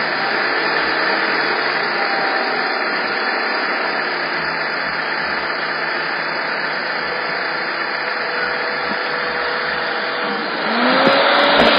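Fiat Panda running with a steady mechanical noise from its air-conditioning compressor, an abnormal noise that a spray of CRC lubricant later cured. Near the end it gets louder and a rising whine sets in.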